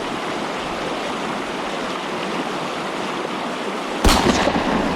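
Mountain stream rushing steadily, with a sudden loud thump about four seconds in.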